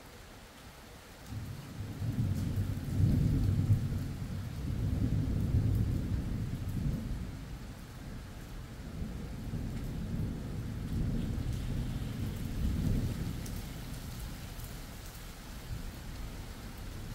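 Thunder rolling for many seconds: a deep rumble sets in suddenly about a second in and swells and fades several times, over steady rain.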